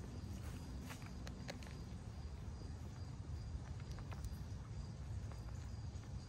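White-tailed doe eating corn right at the microphone: scattered crunching clicks over a low steady rumble, with a faint steady insect drone in the background.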